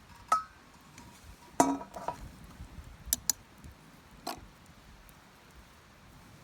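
Metal camp cookware clinking: about half a dozen sharp clinks, the loudest about one and a half seconds in, ringing briefly.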